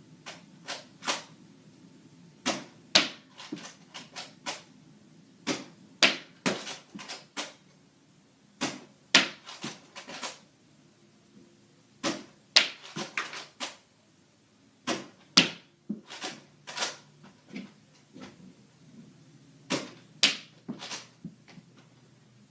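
Foam Nerf darts being fired and striking a wall, with sharp taps and clatter coming in clusters of several every two to three seconds.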